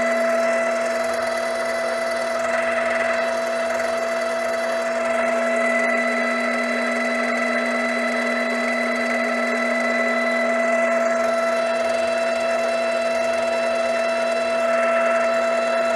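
Grizzly G0765 7x14 benchtop mini-lathe running at a steady spindle speed of about 530 RPM: a constant whine made of a strong low tone with several higher tones above it.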